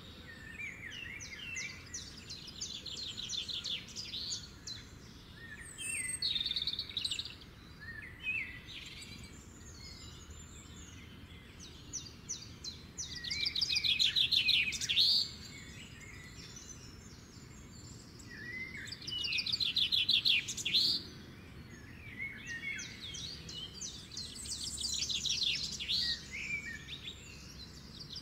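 Several songbirds singing, including phrases of rapid trilled notes, the loudest about 14 and 20 seconds in, over a faint steady low background rumble.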